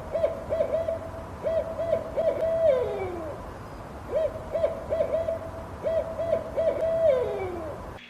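An owl hooting in two matching phrases, each a quick run of short hoots ending in a long, falling hoot.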